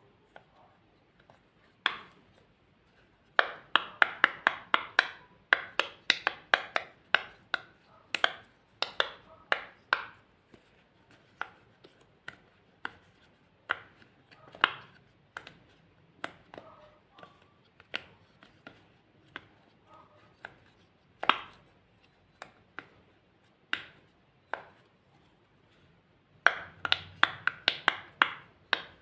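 Crisp clicks and pops of glossy slime being worked, in quick runs of several clicks a second with single clicks between.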